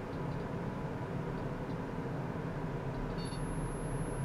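Ultrasonic transducer with a special resin bonded to it, driven under oscillation control in a bowl of water: a steady low hum and hiss. About three seconds in, a thin high whine comes in and holds.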